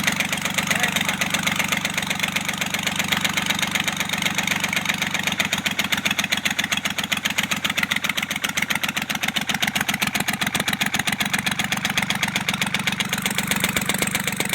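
Kubota L1-255 tractor's diesel engine running steadily with an even, rapid knocking beat, the knock traced to a defective valve seat in the cylinder head.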